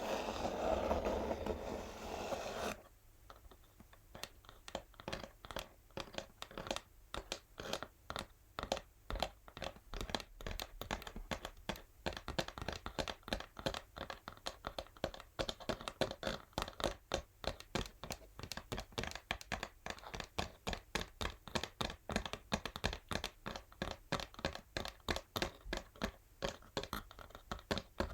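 Natural fingernails scratching an empty textured cardboard box, then tapping on it in a quick, steady run of sharp taps, several a second, from about three seconds in.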